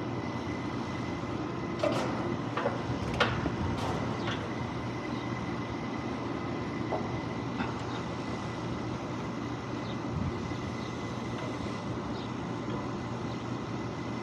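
Steady running noise of rooftop refrigeration/HVAC equipment, a low hum with a thin steady high tone, broken by a few sharp clicks or taps around two to four seconds in.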